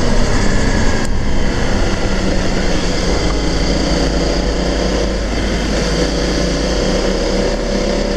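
Honda CRF250L's single-cylinder engine running steadily while riding, with wind rushing over the microphone.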